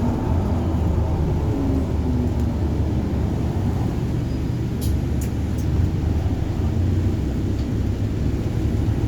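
Bus running on the move, heard from on board: a steady low engine and road rumble, with a few faint clicks about halfway through.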